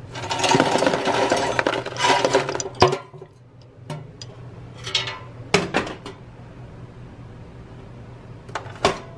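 Air-fried French fries tipped from a non-stick air fryer basket onto a paper plate, rattling and scraping for about three seconds. A few separate knocks follow as the basket is handled and set down, with two more clicks near the end.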